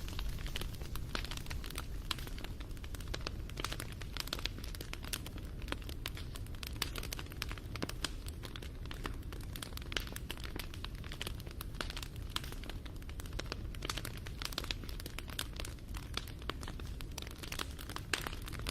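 Wood fire crackling: a dense, irregular scatter of sharp pops and snaps over a steady low rumble.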